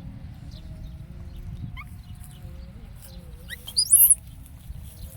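High-pitched animal calls: a few faint rising chirps about two seconds in, then a loud, quick run of rising squeaks about four seconds in, over a low steady rumble.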